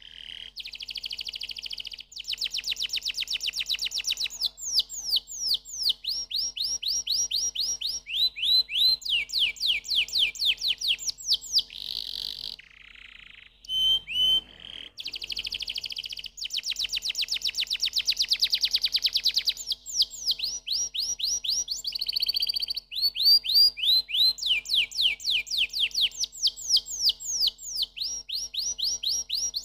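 Domestic canary singing a long song of fast trills and runs of rapid, repeated down-sweeping notes. The song breaks off briefly about halfway through.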